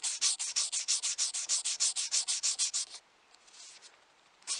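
A small wooden wedge rubbed rapidly back and forth by hand on a 200-grit diamond hone to flatten its face, a quick rasping hiss at about seven strokes a second. The strokes stop about three seconds in and start again just before the end.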